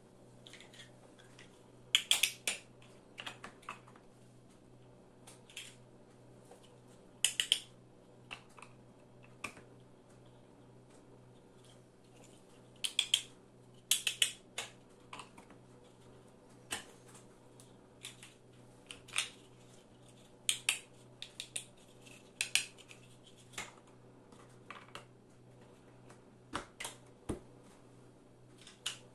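Large plastic building blocks clicking and clacking against each other as they are handled and pressed onto a wall of blocks. The clicks come in short irregular clusters over a faint steady low hum.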